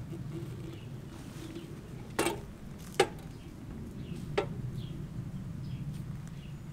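Metal tin being handled and set down on a workbench: three sharp knocks, the middle one loudest, over a low steady rumble, with faint bird chirps behind.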